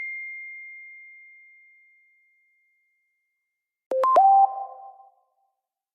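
iPhone notification tones. A single high tone rings out and fades away over about two seconds. Near four seconds in, a second short alert of a few lower tones with a quick upward slide sounds for about a second.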